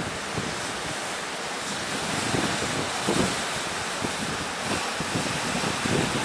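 Heavy ocean surf rushing steadily, with gusty wind buffeting the microphone.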